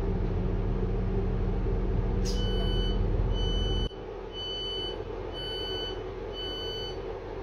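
Class 159 diesel train's door warning beeps: five short, high electronic beeps about once a second, starting about two seconds in. Under them runs the train's low diesel rumble, which drops sharply about four seconds in.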